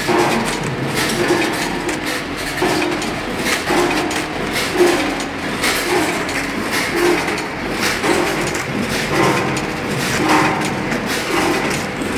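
Candy bagging machine and white belt conveyor running, with a clattering machine cycle repeating about one and a half times a second over a steady mechanical hum.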